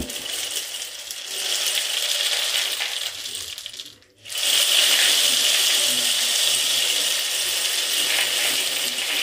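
Homemade cardboard-tube rain stick turned over, its dried grains trickling down past the nails inside as a continuous fine pattering rush. It dies away about four seconds in as the fill runs out, then starts again louder when the stick is flipped.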